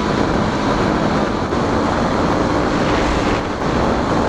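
Wind rushing over the microphone of a moving motorcycle, with the KTM RC 200's single-cylinder engine running steadily underneath.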